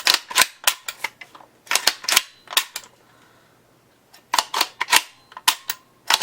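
A rapid series of sharp clicks, about three to four a second and unevenly spaced, in two runs with a pause of about a second and a half in the middle.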